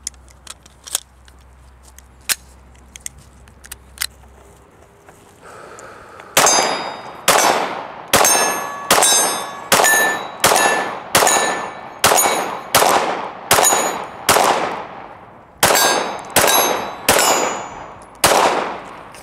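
Glock 17 9mm pistol fired in a steady string of about sixteen shots, a little under a second apart with one brief pause, each shot trailing off in a ringing tail. A few light clicks of handling come before the first shot.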